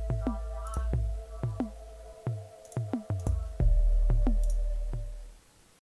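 Electronic outro music: a held synth tone over deep bass and a beat of drum-machine kicks that drop quickly in pitch. It fades and stops just before the end.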